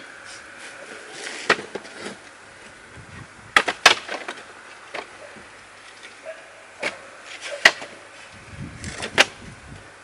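Wood snapping and cracking: a series of about six loud, sharp snaps with smaller clicks and rustling between them.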